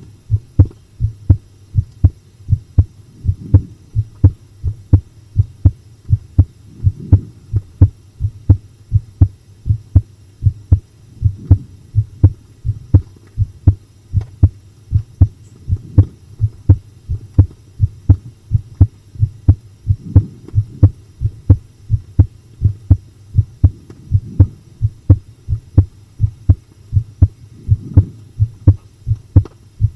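A person's heart beating, close up, with a fast, steady rhythm of low thumps. It is pounding with the fright of watching a horror film. A steady low hum lies under the beats.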